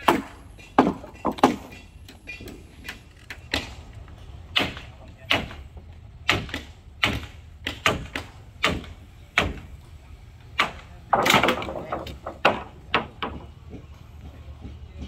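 Irregular hammer blows on wood, one or two a second, knocking loose the nailed battens on a wooden cargo boat's gunwale plank, with a rougher run of blows about eleven seconds in. A steady low hum runs underneath.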